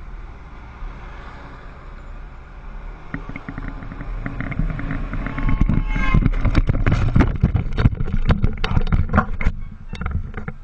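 A small scooter running, with wind on the helmet microphone. Then, about six seconds in, a quick run of sharp knocks and scrapes as the scooter crashes and slides on its side across the pavement.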